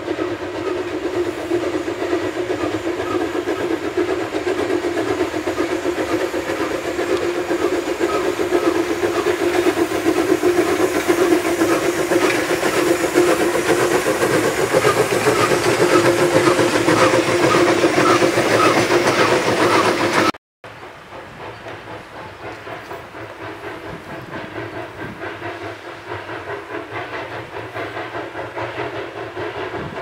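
Narrow-gauge (760 mm) forest-railway steam locomotive working along the line: steady exhaust beats and steam hiss. The sound drops out briefly about twenty seconds in, then goes on fainter and more distant.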